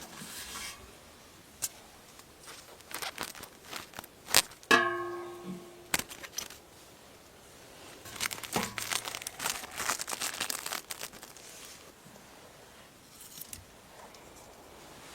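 Intermittent rustling, scraping and tearing of hand work with natural building materials, with a few sharp knocks and a short pitched ring about five seconds in.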